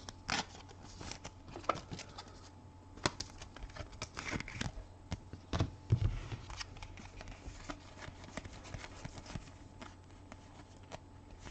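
Trading cards being handled and slid through a stack: scattered small clicks, taps and rustles of card stock.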